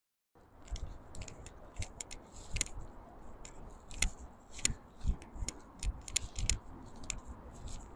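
Footsteps of a person walking over grass and stones at a steady walking pace, about two steps a second. Each step is a dull thud with a sharp click or rustle.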